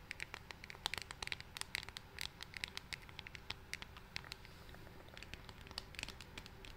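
Long fingernails tapping and scratching on a pink One Size cardboard product box held close to the microphone, in quick, irregular clicks.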